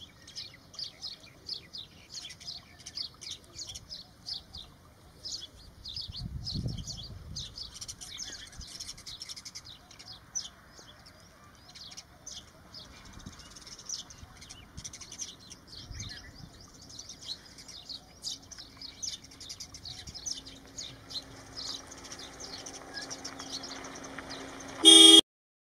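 House sparrows chirping over and over, several short high chirps a second. Near the end there is a short loud burst, after which the sound cuts off.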